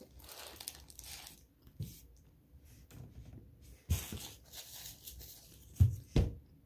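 Paper sandwich wrapper rustling and crinkling as a sandwich is held and eaten, with a few short dull thumps, the loudest two close together near the end.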